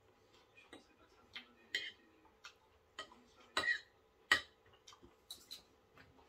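Metal knife and fork clinking and scraping on a plate while eating: irregular sharp clicks, the loudest about four seconds in, over a faint steady hum.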